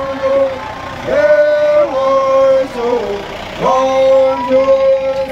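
Voices chanting in long held notes. Each phrase swoops up into a steady tone and holds it for about two seconds, and the phrases repeat about every two and a half seconds.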